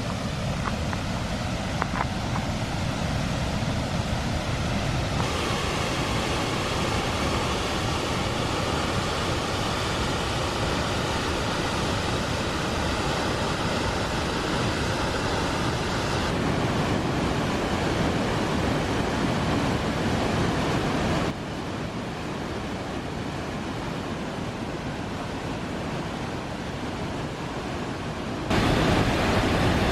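Rushing water of a high waterfall, a steady dense noise that shifts abruptly in level several times, quieter for a stretch in the second half and louder again near the end.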